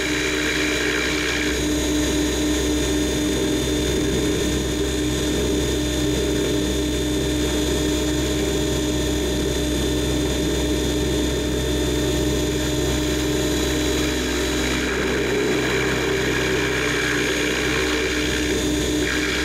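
Camera drone's motors and propellers humming steadily in flight, with a hiss that comes in during the first second or so and again for a few seconds near the end.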